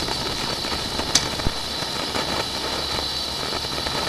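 Steady machine hum and hiss with a constant high whine, and two short clicks a little over a second in.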